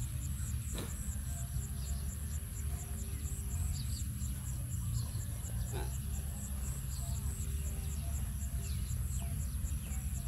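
Outdoor farmyard ambience: insects chirping in a fast steady rhythm of about four pulses a second over a constant high hiss, with a few short bird chirps, two faint knocks and a low rumble underneath.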